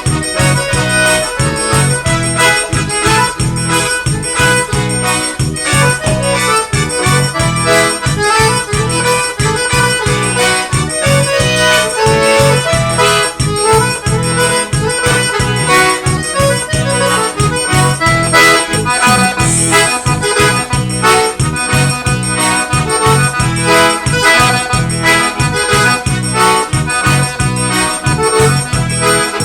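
Forró music played live: an accordion carrying the melody over a keyboard accompaniment with a steady danceable beat.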